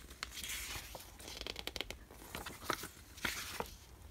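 Pages of a glossy paper booklet being turned by hand, rustling and flapping in several short bursts with small crisp clicks.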